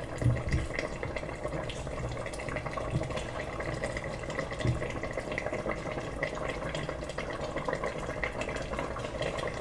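Broth of a white fish and green olive tagine simmering in a metal pot, bubbling steadily with many small pops.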